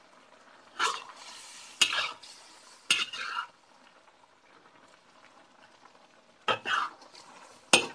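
Metal spatula scraping and stirring a simmering duck adobo in a wok: short strokes about one, two and three seconds in, then a pause and two more near the end, with the sauce bubbling faintly between them.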